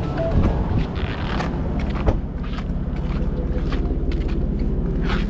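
Boat motor running steadily, with wind noise and scattered short knocks.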